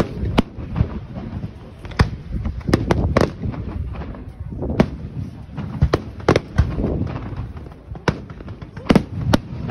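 Fireworks display: about a dozen sharp bangs of shells bursting overhead, spaced unevenly, some in quick pairs, over a low rumble.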